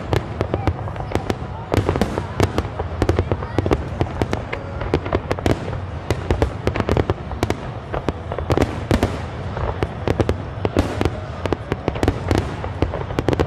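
Aerial fireworks display: a dense, unbroken barrage of shell bursts, many sharp cracks in quick succession over a steady low rumble.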